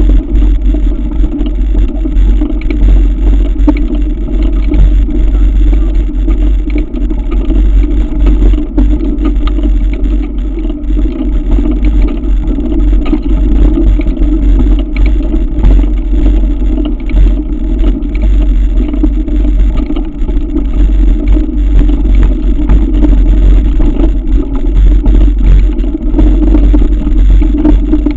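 Mountain bike climbing a gravel track, heard through the rider's own camera microphone: a steady heavy rumble with frequent small clicks and rattles from the tyres on loose gravel and the bike's parts.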